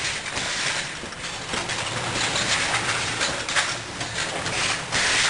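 Automatic jar-packing line running: a dense, continuous clatter of glass jars knocking together as they are pushed along the conveyor, mixed with machine rattle, with louder surges of clatter now and then.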